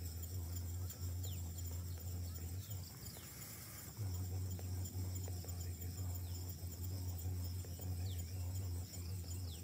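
Insects shrilling steadily at a high pitch over a low steady hum, with short falling whistle-like calls every few seconds. The hum drops out for about a second near the middle while a brief hiss comes in.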